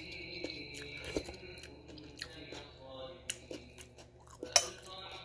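Close-up chewing and wet mouth sounds of someone eating, with small clicks throughout. Near the end comes a sharp clink of a metal spoon on the plate.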